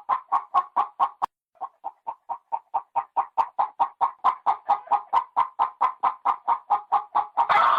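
Hen clucking in a fast, even run of short clucks, about five a second. The clucks pause briefly a little over a second in, and a louder, fuller cluck comes near the end.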